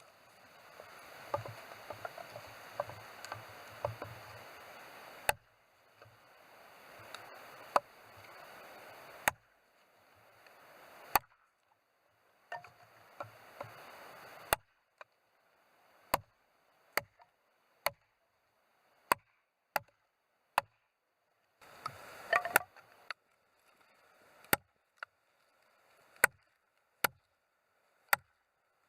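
Axe chopping firewood: a series of sharp wooden strikes, at first scattered between stretches of rustling handling noise, then coming about once a second in the second half.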